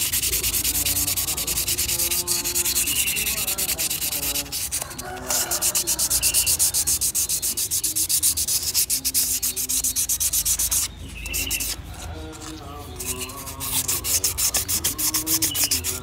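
Rapid back-and-forth rubbing of 1000-grit sandpaper on a refrigerator compressor's metal valve plate, scouring the valve seats clean so the valves can seal and work again. The rubbing pauses briefly about five seconds in and again for a couple of seconds about eleven seconds in.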